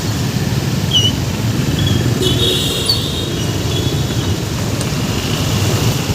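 Road traffic noise: a steady low rumble of passing vehicles, with a few short high chirps about a second in and again between two and three seconds.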